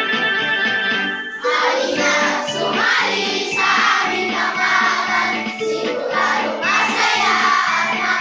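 A class of children singing a Tagalog song in unison over an instrumental backing. The backing plays alone for about the first second and a half before the voices come in.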